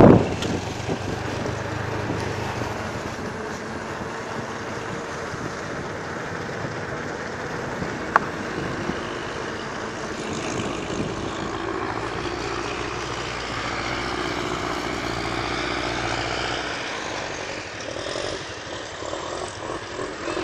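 Engine and road noise of a vehicle travelling slowly, heard from on board as a steady hum under a rushing noise. There is one sharp click about eight seconds in.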